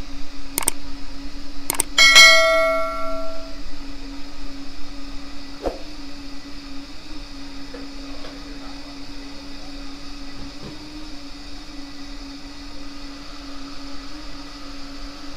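LPG pump filling a 5 kg refillable gas bottle: a steady hum with a steady high whine as the gas flows. About two seconds in, a few sharp clicks and a loud metallic ring that dies away over a second or so.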